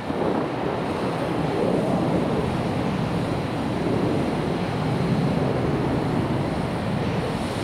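Steady, even rumble of jet airliner engines heard at a distance.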